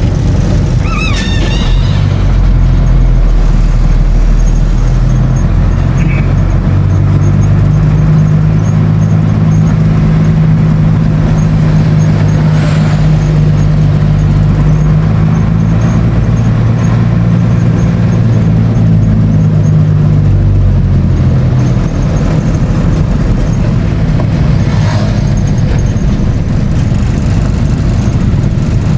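A road vehicle's engine running steadily while driving, with road noise, its low hum rising and falling slightly in pitch. A brief wavering high squeal sounds about a second in.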